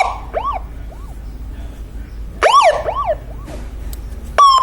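Electronic siren module with an echo effect. It sounds a short chirp that rises and falls in pitch, followed by two or three fading echoes, and repeats this about two and a half seconds later. Near the end it switches to a short, flat horn-like blast, which is also echoed.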